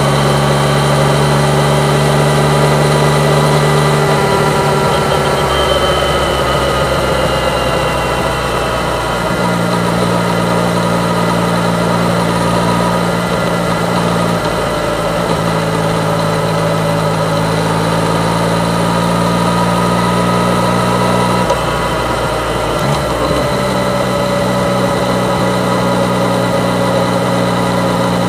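Yamaha MT-09's three-cylinder engine running steadily, its note shifting a few times.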